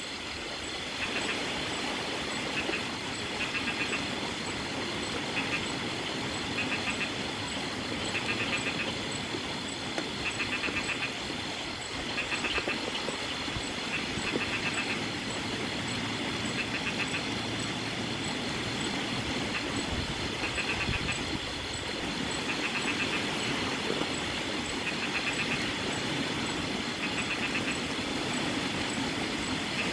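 Steady rain with wind gusting through coconut palm fronds. A short trilling animal call repeats every couple of seconds through most of it.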